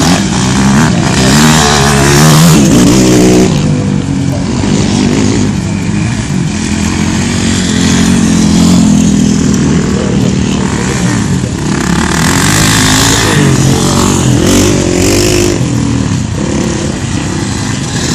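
A field of dirt bikes running together on a start line, many engines at once with their pitches rising and falling as riders blip the throttles.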